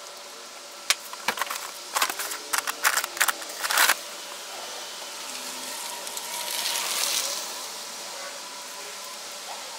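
A wooden sand-casting flask being handled: a quick run of sharp knocks and scrapes for a few seconds, then a soft hiss of molding sand going into it.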